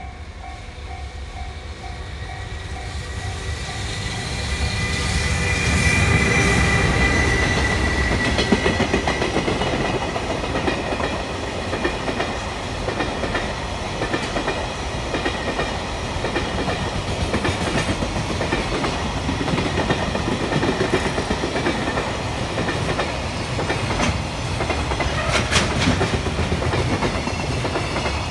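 Electric freight train passing close by a level crossing: the locomotive goes by with a whine about five to eight seconds in, the loudest part, then a long string of container wagons with wheels running over the rail joints and a few sharp clanks near the end. The crossing's warning bell rings at the start.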